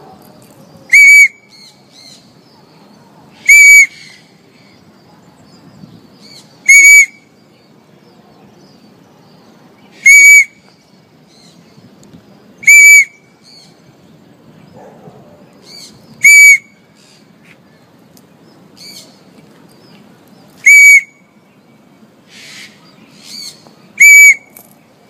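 A parrot calling loudly and repeatedly: short, shrill, piercing calls, eight of them a few seconds apart, with a few fainter calls in between.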